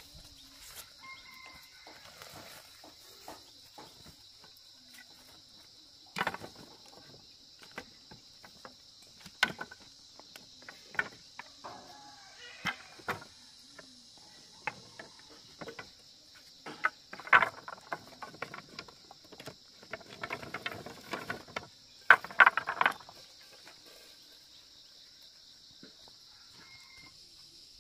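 Dry cut sticks clattering and knocking together as they are picked up from a pile and gathered into an armful, loudest in bursts near the end. A steady high buzz of insects runs underneath.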